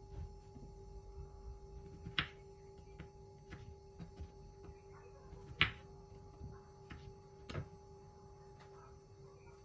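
Knife slicing a kiwi on a wooden cutting board: a few sharp knocks of the blade meeting the board, three of them clearer than the rest, over a steady hum.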